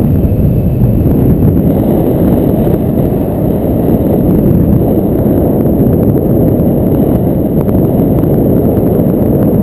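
Wind noise from the airflow of a paraglider in flight buffeting the camera microphone: a loud, steady, deep rush.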